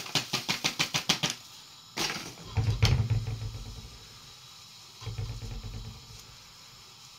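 Sugar being sifted through a mesh sieve over an aluminium pot: the sieve is shaken with quick regular rattling taps, about eight a second, for a little over a second. Then a knock and low rubbing rumbles as the sieve is jostled on the pot, once more about five seconds in.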